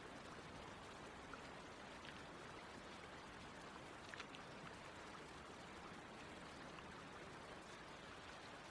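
Faint, steady running of a stream, with a couple of faint ticks about four seconds in.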